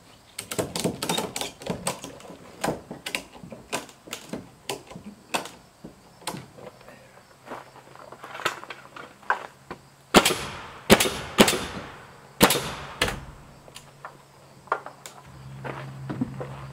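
Ratchet strap clicking in quick runs as it is cranked to pull bowed rough-sawn siding boards tight, with a few louder knocks that ring briefly partway through.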